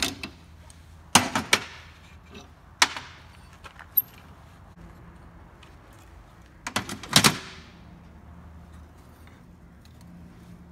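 Metal tools and clamps clanking on a metal drill press table as a piston hold-down setup is taken apart: a clank at the start, a quick run of clanks about a second in, single knocks near three and four seconds, and a longer rattling run of clanks around seven seconds.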